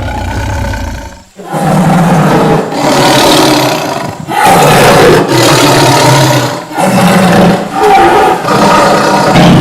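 Tiger roaring: a low rumbling growl, then a run of about five loud roars in close succession, each a second or two long with short breaks between.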